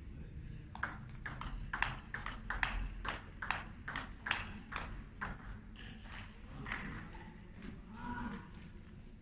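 Table tennis rally: the ball knocks back and forth off the bats and the table in a quick run of sharp clicks for about five seconds, then stops as the point ends.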